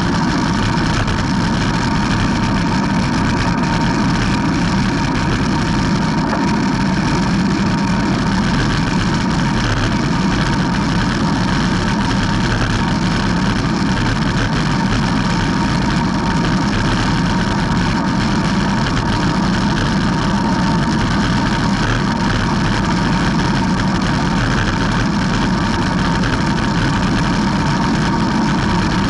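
Steady wind rush over the bike-mounted camera's microphone, mixed with tyre noise from a road bike coasting downhill at speed. A faint steady hum runs through the rushing.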